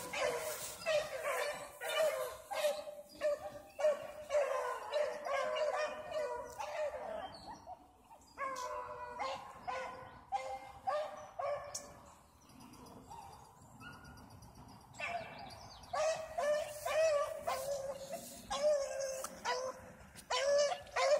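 Dogs barking in quick, repeated calls, quieting for a few seconds around the middle before starting up again.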